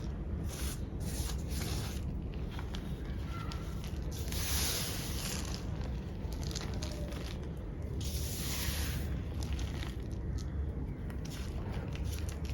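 Small pebbles of black-dyed gym chalk being crushed and played with by hand: dry crackling crunches, with two longer gritty crumbling passes about four and eight seconds in.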